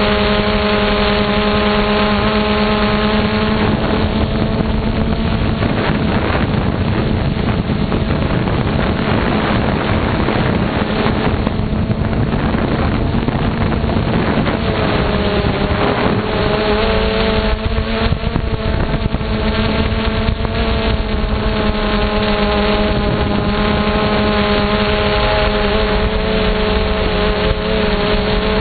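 Onboard sound of a camera drone in flight: its electric motors and propellers hum steadily, mixed with wind rushing over the microphone. The hum's pitch shifts with the throttle, dipping about four seconds in and coming back about fifteen seconds in.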